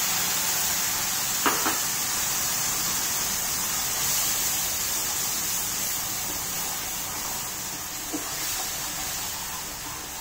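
Wet onion, ginger, garlic and green-chilli paste sizzling in hot mustard oil in a kadhai: a steady hiss that slowly dies down as the paste fries. A couple of light knocks about a second and a half in, and another about eight seconds in, from the wooden spatula stirring against the pan.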